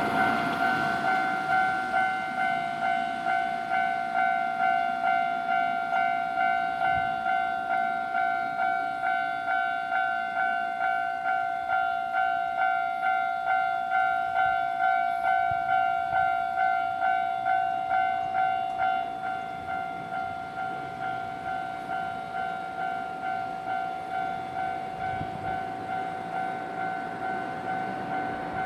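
Japanese railway level-crossing warning bell ringing, an electronic two-tone clang repeating about twice a second. It drops in volume about two-thirds of the way through.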